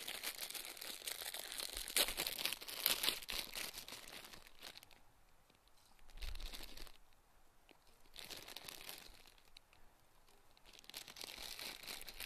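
Plastic ramen noodle wrapper being torn open and crinkled in the hands, in irregular bursts, densest in the first few seconds, quieter in the middle and picking up again near the end.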